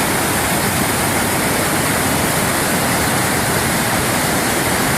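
Waterfall's water crashing down in a steady, loud, unbroken rush.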